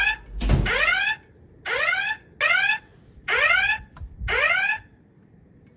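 Wheelock E60 fire alarm speaker, driven by a Potter Evax voice evacuation panel, sounding its alert tone: a series of about six rising sweep tones, each about half a second long, ending about five seconds in. This is the evacuation alert that comes before the recorded voice message.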